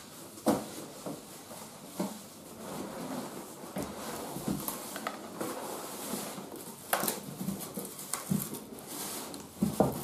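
Cardboard box holding a coffee machine being handled and tipped: rustling and scraping of cardboard with several knocks, the sharpest about seven seconds in.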